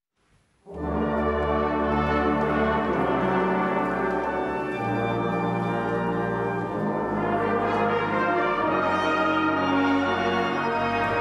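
Music: brass instruments playing full sustained chords, starting abruptly just under a second in after a brief silence.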